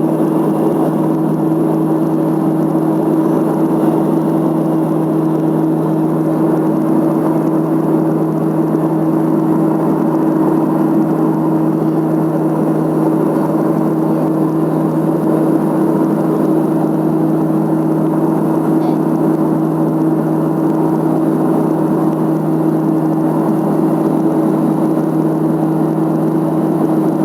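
Let L-410's twin turboprop engines and propellers running steadily: a constant droning hum with a higher tone above it, over a dense rushing noise.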